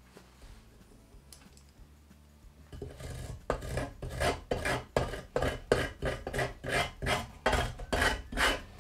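A hand tool scraping old rope seal and hardened gasket glue out of a wood stove's metal door frame. It starts about three seconds in as quick, even back-and-forth scraping strokes, about three a second.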